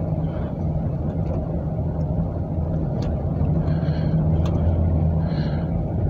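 Inside the cab of a 1999 Chevrolet Astro van on the move: the 4.3-litre V6 and road noise make a steady low drone with a constant hum.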